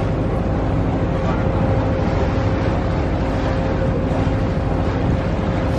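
Tour boat's engine running with a steady drone and constant low hum, heard from on board.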